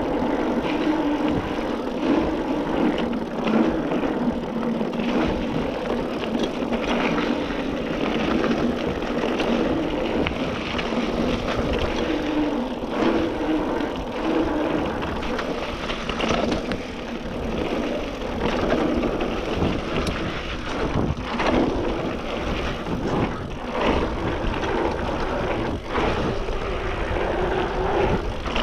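2019 Trek Roscoe 8 mountain bike on 27.5+ tyres rolling fast down a dirt singletrack. A steady rush of wind and tyre noise on a chest-mounted action camera, with frequent clunks and rattles from the bike over roots and bumps.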